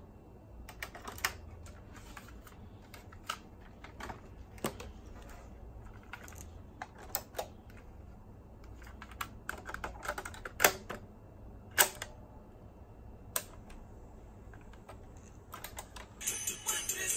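Scattered plastic clicks and knocks as a cassette is taken from its clear case and loaded into the Pioneer SK-750 boombox's cassette deck. Near the end the tape starts playing and music comes on.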